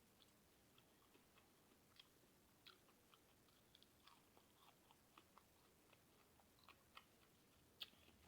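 Faint chewing of a person eating: small, irregular mouth clicks and smacks, a few per second, with a sharper click near the end.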